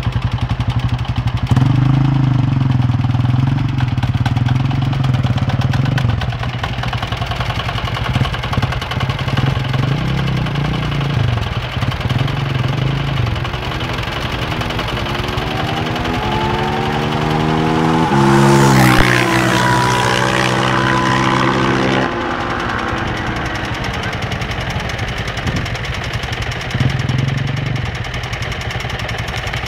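Sport quad engines: a Suzuki LTR 450 single-cylinder revs close by in the first seconds. Later a quad accelerates through the gears, its pitch rising in steps, and passes loudest about two-thirds of the way through. Its note cuts away suddenly a few seconds later.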